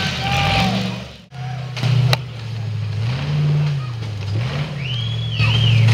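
Rock-crawler buggy engine revving in short surges, its pitch rising and falling as it works over rocks, then holding steadier and louder near the end. A sharp click about two seconds in and a short high whistle near the end.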